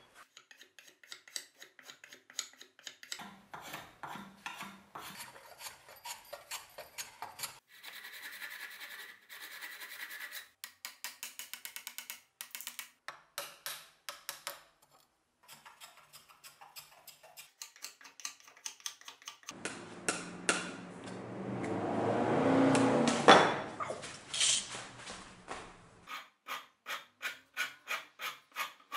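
A steel file and rasp scraping a birch axe handle in quick repeated strokes, a few per second, in several short runs. In the second half comes a longer, louder, unbroken stretch of scraping noise.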